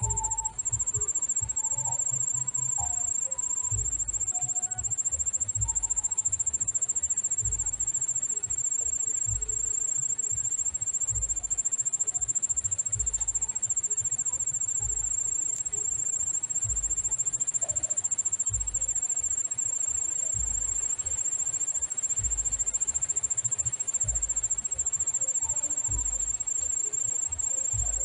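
An insect's high, steady, finely pulsed trill runs throughout, over irregular low rumbles. A few faint short chirps come in the first few seconds.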